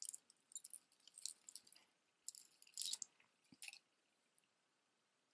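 Faint clinks and jingles of costume-jewelry chains and beads being handled, in a few short clusters over the first four seconds.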